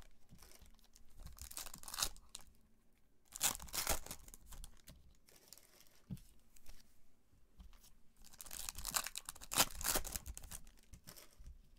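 Foil wrapper of a trading card pack being torn open and crinkled by hand, in a few short rips about two, four and nine to ten seconds in, with quieter rustling between.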